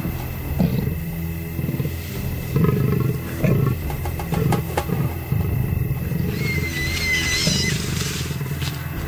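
A leopard and a hyena growling and snarling at each other in a run of low, rough growls, the sound of the two animals squabbling over a kill.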